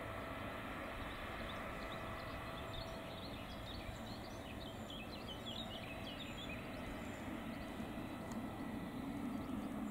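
Boeing 777-300ER's GE90 jet engines running at taxi power, a steady hum and whine with a few faint pitched tones, growing a little louder near the end. Birds chirp briefly in the middle.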